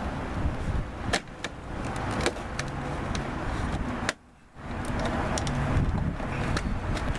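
Wind rumbling on the microphone, with a few sharp clicks and taps of car door parts being handled during reassembly. The sound drops away briefly about four seconds in.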